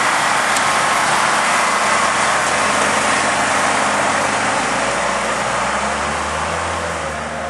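Road vehicle running: a steady engine and road noise that eases off slightly near the end.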